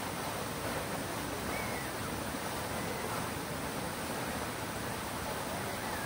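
Fountain water falling and splashing in a steady, unbroken rush.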